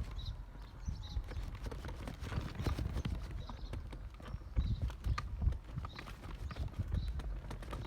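Footsteps on a path at a walking pace, irregular knocks over a low rumble of wind on the microphone, with small birds chirping in short high notes.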